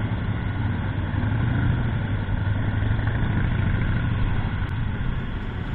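Motorcycle engines running at low speed with a steady low hum, as bikes pull away from a stop one after another.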